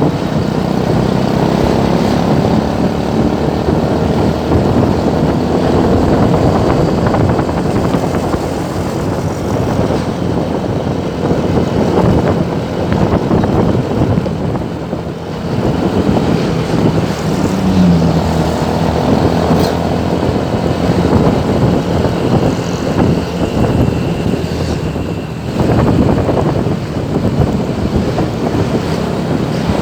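Road traffic: motorcycle and car engines running in slow, congested traffic, a steady dense engine noise throughout.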